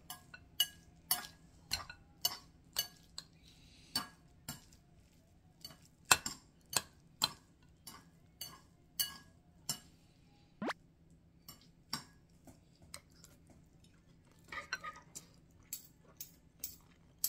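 Metal spoon and chopsticks clinking against a ceramic bowl as rice is stirred and scooped, in sharp, irregular clinks about one or two a second.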